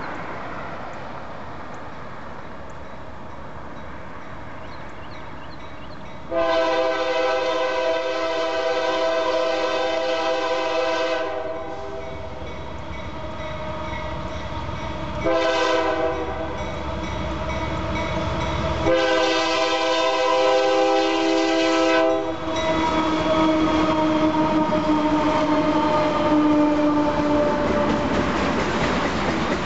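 Union Pacific freight train's diesel locomotive horn sounding for a grade crossing: a long blast, a short one and another long one. Then the lead locomotives and cars pass close by with a rising rumble of engines and wheels on the rails, a fainter tone falling slightly in pitch as they go by.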